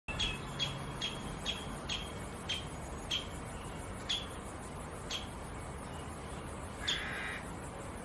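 Syrian woodpecker giving a series of short, sharp call notes, about two a second at first, then slowing to one every second or so, with a longer, rougher note near the end.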